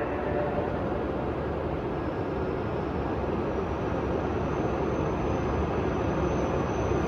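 Rumble of an approaching H5 and E6 series Shinkansen train echoing through an underground station, slowly growing louder, with a faint high whine coming in partway through.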